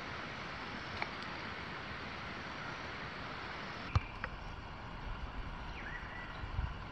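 Steady natural outdoor background, a soft even hiss, with a faint tick about a second in, a sharper click about four seconds in, and a short rising chirp about six seconds in.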